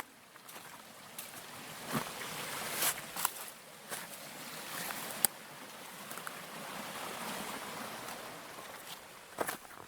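Brook water running over stones, with scattered sharp knocks and clicks, a few more near the end.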